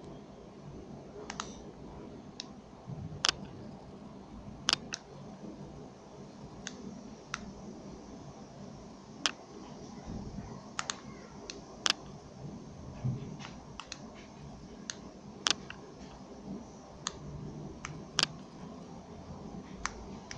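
Buttons on a VIBOTON C120 air-mouse remote being pressed: sharp single clicks at irregular intervals, roughly one every second.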